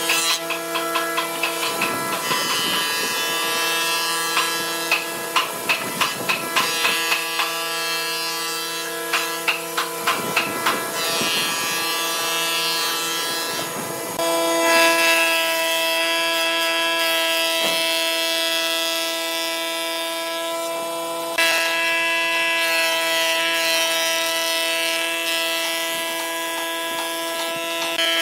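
Combination jointer-planer running with a steady whine from its spinning cutterhead while a rough wooden slab is fed across the knives, which cut the wood in uneven rapid bursts of rasping noise through the first half. After that the machine runs on with a steady, louder whine that steps up again partway through.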